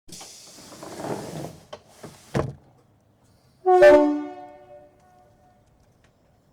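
British Rail Class 317 electric multiple unit closing its doors: a hiss, a couple of knocks and a sharp thud as they shut. A little later its two-tone hooter gives one short loud blast, a higher note dropping to a lower one, the warning before the train departs.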